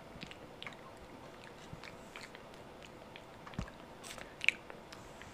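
Java macaque chomping on a mouthful of beans and onions: irregular short clicks of chewing, with one sharper click about four and a half seconds in.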